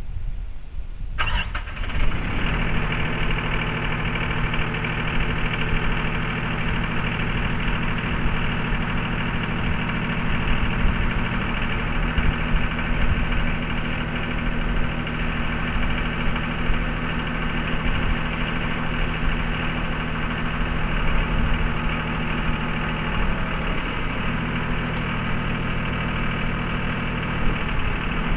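Mahindra 3616 compact tractor's diesel engine running steadily while powering the 3720 backhoe, filling out louder about a second in and dipping slightly in pitch near the end.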